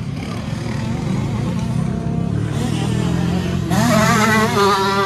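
Motocross bike engine running on the track. From about three and a half seconds in it gets louder, revving with a rising, wavering pitch as the throttle is worked.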